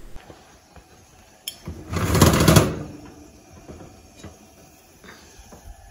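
Oven being opened: a single short metallic rattle lasting under a second, about two seconds in, after a faint click.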